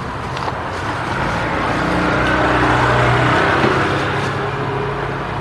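A motor vehicle passing by: its engine and road noise swell to a peak about three seconds in, then fade.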